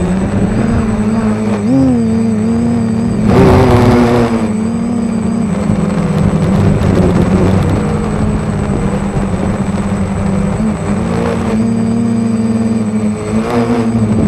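Spider 550 hexacopter's brushless motors and 7x4.5 propellers running, a steady buzzing hum whose pitch wavers a little as the throttle shifts. About three seconds in it swells into a louder rush for about a second.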